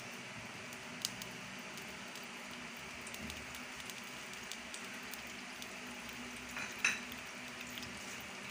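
Cooking oil heating in a non-stick frying pan, giving a faint steady sizzle with scattered small crackles. There is a sharper click about a second in and a louder crackle near seven seconds.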